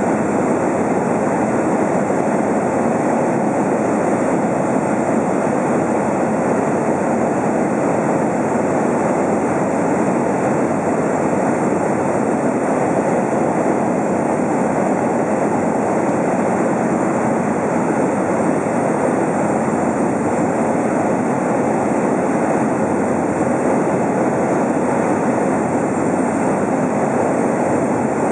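Steady cabin drone of a high-wing Cessna cruising: engine, propeller and rushing air heard from inside the cabin.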